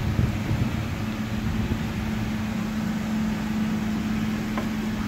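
1994 Ford Ranger's 3.0L V6 idling through stainless headers and a dual-chamber muffler: a steady low exhaust rumble with a constant hum over it.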